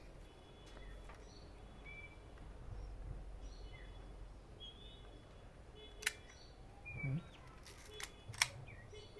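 Two sharp mechanical clicks from a Kodak Retina IIS rangefinder being worked through a shutter test at 1/500 s, about six and eight and a half seconds in, with a softer handling sound between them. Faint bird chirps in the background.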